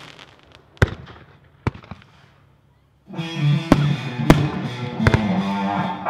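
Fireworks going off: two sharp reports about a second apart as the sound dies away to a brief hush. About three seconds in, music starts, and more sharp firework reports crack over it.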